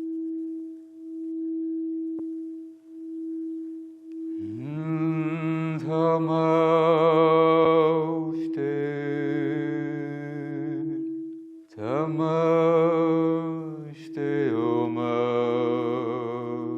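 A singing bowl rings a steady tone that pulses slowly in loudness. About four seconds in, voices join with long held toning notes that waver in pitch, break off briefly near twelve seconds, and start a second held note over the continuing tone.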